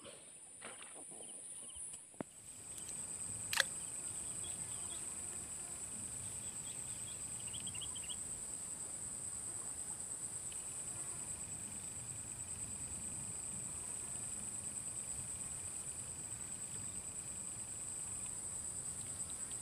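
Insects chirring in a steady, high-pitched drone, with a single sharp click about three and a half seconds in.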